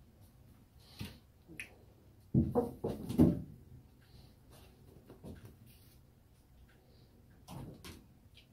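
Kittens playing and jumping, with a quick run of thumps and knocks against furniture and floor about two to three seconds in, and light scattered ticks around it.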